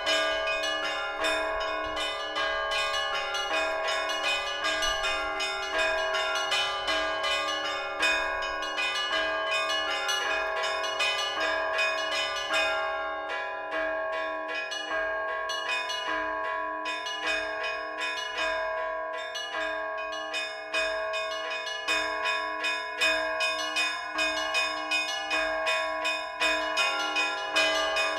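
Orthodox church bells rung by hand in a bell tower: small and middle bells strike in a quick, continuous pattern of several strokes a second over the steady ringing of overlapping bell tones.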